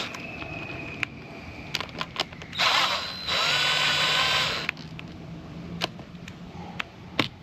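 Cordless drill-driver running in short spurts as it backs out the rectifier's mounting screws on an outboard: a faint whine at the start and a louder steady run of about two seconds in the middle, with small clicks of screws and tool being handled in between.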